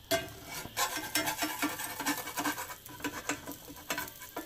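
Slotted metal spatula scraping and clicking irregularly against a cast iron skillet, working under a frying egg to loosen it, over the egg's sizzle.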